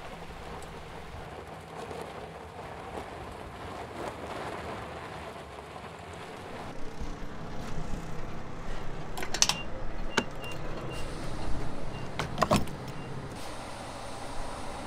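Ford F-150 pickup running as it rolls slowly across a gravel lot. Then, at a gas pump, a few sharp clicks and a row of short high beeps while refuelling.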